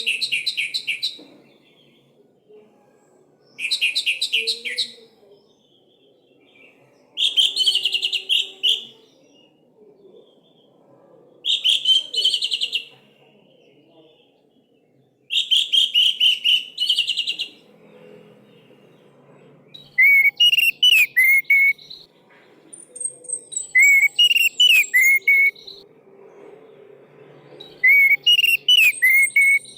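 Orange-headed thrush singing in a series of short loud phrases, each a second or two long with brief pauses between them. Early on the phrases are rapid trills; from about two-thirds of the way in they change to sweeping whistled notes with sharp high notes above.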